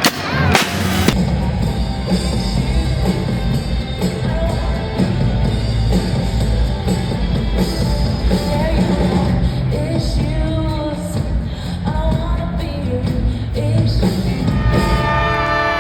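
Live band playing a song: a drum kit and bass under a singer's voice.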